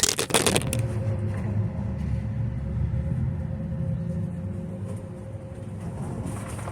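A brief rustle of handling noise, then a low steady rumble with a faint steady hum that slowly fades.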